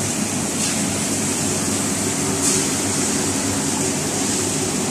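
Many omelettes sizzling in oil on a large flat-top griddle, a steady high hiss that swells briefly twice, over a steady low hum of kitchen machinery.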